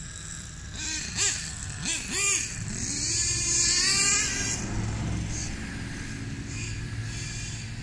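Hobao Hyper 30 Turbo two-stroke nitro glow engine of an RC monster truck revving in three short blips, then rising in pitch and running on at a steadier speed as the truck drives off. The engine is running rough and bogging, needing further carburettor tuning.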